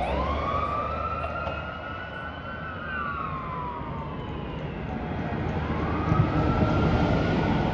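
Fire truck siren wailing: its pitch rises for about three seconds, falls, then rises again near the end, over a low steady rumble.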